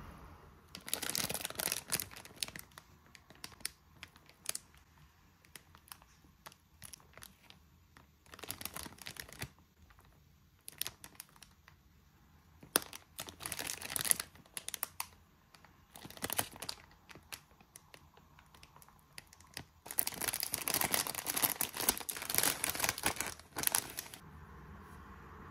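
Plastic bread bag crinkling and rustling in irregular bursts as it is handled and opened, with the longest, loudest stretch of crinkling near the end.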